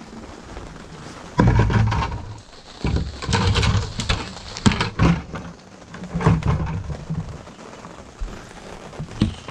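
Irregular bursts of handling noise, with sharp clicks and knocks, as a plastic buckle and its strap are worked into place on a plastic kayak.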